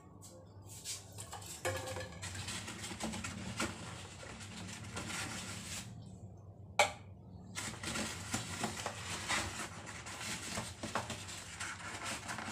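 Quiet kitchen handling noise: small knocks, clicks and rustles as containers and utensils are moved about, with one sharp click about seven seconds in.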